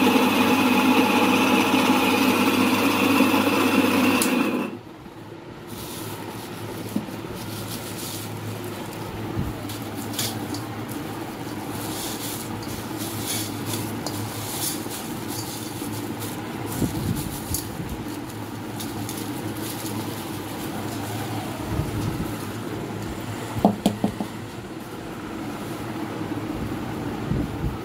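Repaired domestic electric flour mill (atta chakki) running and grinding wheat with a loud steady hum, cutting off suddenly about four and a half seconds in. After that, quieter rustling and light clinks of wheat grain and a plastic bag being handled in the mill's steel hopper.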